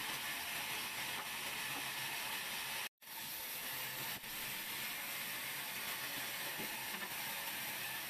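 Large vertical band saw running and cutting through a thick wooden slab: a steady, high noise of blade and wood. It breaks off completely for an instant about three seconds in, then carries on unchanged.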